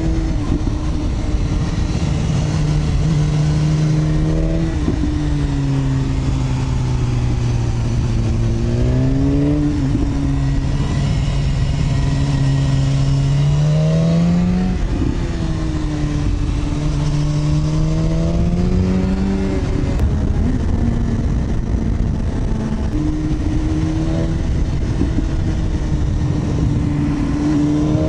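Sport motorcycle engine running at road speed, heard from the rider's seat over wind rush. The engine note climbs under throttle and drops sharply at gear changes several times, with slower falls as it eases off.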